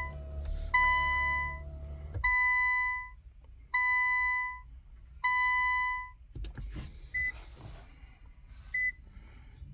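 Infiniti Q50's dashboard warning chime sounding repeatedly as the ignition is switched on, one steady tone about every second and a half, five times, over a low hum for the first two seconds. After a click, two short high beeps follow near the end.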